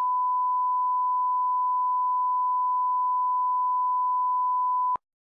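Steady 1 kHz sine-wave line-up tone, the reference tone that runs with television colour bars, one unbroken pitch that cuts off sharply about five seconds in.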